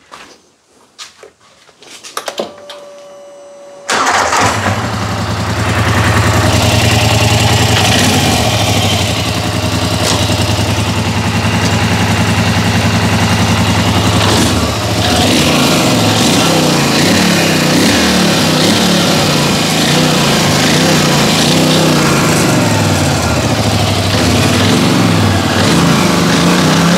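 Polaris Sportsman XP 1000 ATV's 952 cc twin-cylinder engine being started just after its cracked exhaust was welded. A few clicks and a short whine come first, then the engine catches about four seconds in and idles steadily. From about a quarter of the way through, the throttle is blipped and the revs rise and fall. The owner finds the welded exhaust sealed tight.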